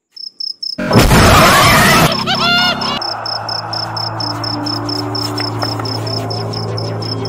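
Crickets chirping in a steady fast pulse, about five chirps a second. About a second in, a loud crash-like dramatic sound effect hits and lasts about a second, followed by a few short rising pitched sounds. After that a low steady hum of background score settles in under the crickets.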